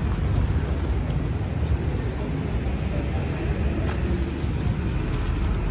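Steady low rumble of a motor vehicle.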